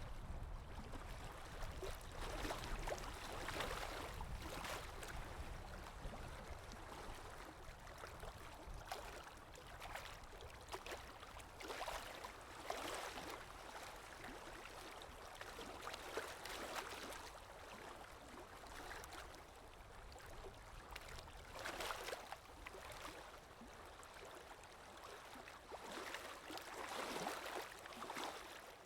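Lake Erie waves breaking and washing in on the shore: a steady wash of water with a surge of surf every few seconds.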